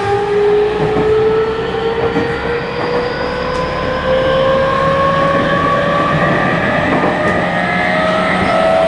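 Tokyu 5000 series motor car's IGBT-VVVF inverter and traction motors whining as the train accelerates, heard inside the car: several tones climb slowly and evenly in pitch over the rumble of the running gear.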